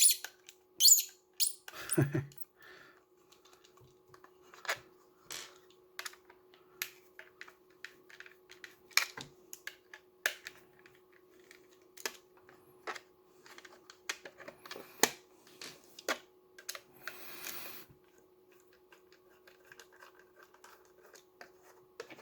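Irregular light clicks and taps of hand-handled small parts and tools on a (tr)uSDX transceiver as it is being opened, with a faint steady hum underneath.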